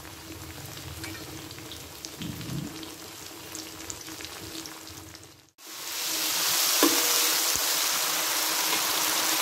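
Chillies, garlic, onion and sauces sizzling in hot oil in a steel wok. The sizzle is fairly quiet at first; after a sudden break about halfway through it becomes much louder and steady as a spatula stirs the mixture.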